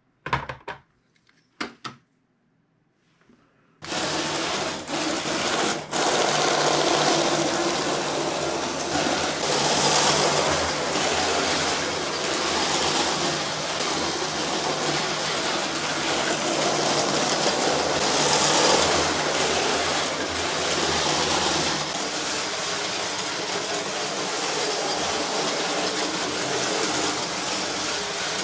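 A few sharp plastic clicks as a battery box is fitted into a brick-built model train, then, from about four seconds in, the train's electric train motors run it round a plastic brick track: a steady whirring hum with wheel rattle that swells and eases twice.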